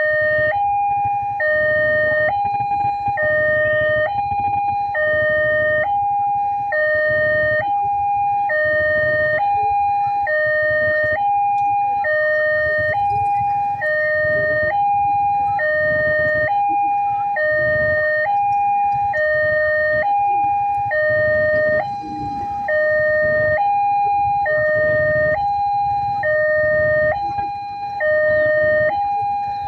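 Railroad crossing warning alarm sounding from the signal's loudspeaker: a loud two-tone signal that alternates between a lower and a higher note about every three quarters of a second, warning that a train is approaching. A low rumble runs underneath.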